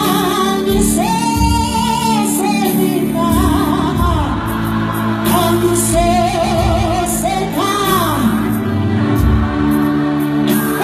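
Gospel youth choir singing in isiZulu, with one prominent voice carrying a gliding melody over the ensemble, backed by sustained low instrumental notes and cymbal or hi-hat strikes.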